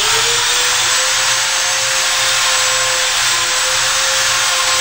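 Die grinder with a sandpaper roll grinding out the bore of an old tapered pinion bearing's inner race: a steady whine over a grinding hiss, climbing slightly as it comes up to speed and stopping near the end. The bearing is being opened up so that it slides onto the new pinion without a press, for checking pinion depth.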